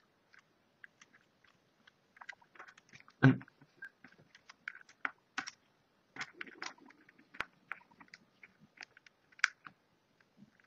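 Small clicks and taps of fingers and tools handling the Nokia N900's parts while the display's ribbon connector is fitted to the board, with one louder knock about three seconds in.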